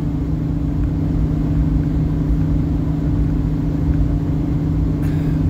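Steady road and engine noise inside a moving car's cabin: a constant low rumble with an even, unchanging hum.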